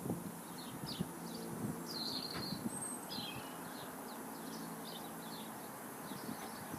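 Small birds chirping in quick, short high notes all through, over faint low rustling.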